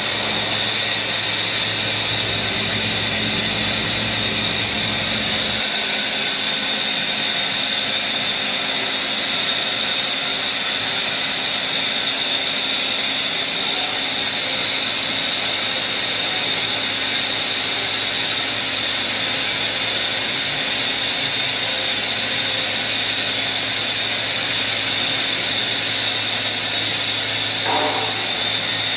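Makino A71 horizontal machining center running under power: a steady mechanical whine with a high tone over a hiss. A low hum underneath cuts out about six seconds in.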